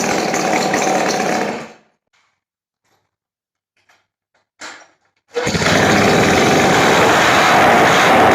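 Suzuki-based twin-cylinder two-stroke engine running, which stops a little under two seconds in. After a few seconds of silence and a brief faint noise, it is running again.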